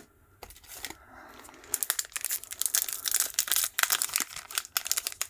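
Foil Commander Legends booster-pack wrapper crinkling as it is handled and torn open, starting about two seconds in.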